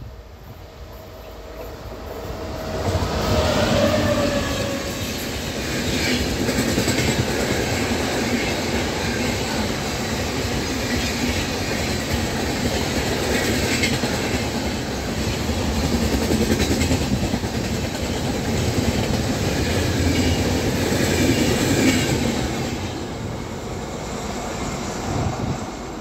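WAP-7 electric locomotive and its express coaches passing at speed: the sound builds as the train approaches, the locomotive's tone drops in pitch as it goes by about three seconds in, then the coach wheels rumble and clack over the rails for about twenty seconds before fading near the end.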